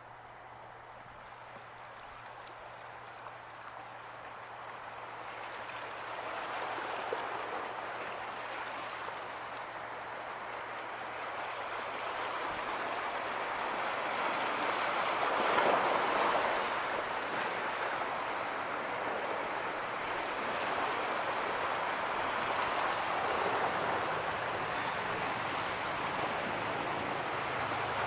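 Rushing wash of water, the waves thrown up by fast-moving boats. It swells steadily over the first half, is loudest about halfway through, and then holds.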